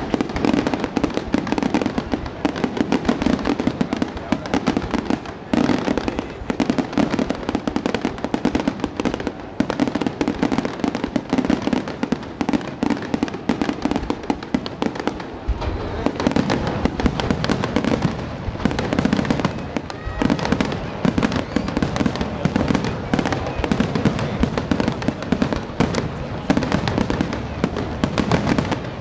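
Finale of a large aerial fireworks display: shells bursting in a dense, unbroken barrage of overlapping bangs.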